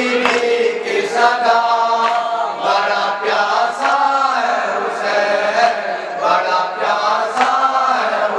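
Men chanting a noha, a Muharram lament, together through microphones and a PA, with sharp slaps of matam, hands striking the chest, about once a second.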